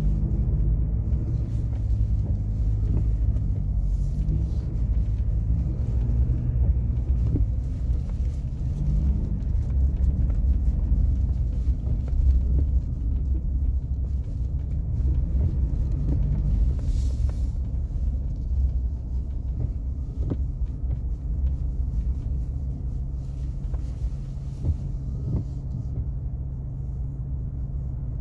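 Ford Wildtrak pickup truck on the move, heard from inside the cab as a continuous engine and road rumble. The engine note rises and falls through the first half as the speed changes, then settles into a steady hum.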